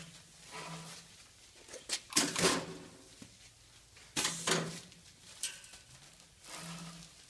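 Garment bagging machine for hanger-hung textiles cycling repeatedly, started by the foot pedal. Each cycle is a short rushing noise of about half a second, often with a brief low hum, about every two seconds.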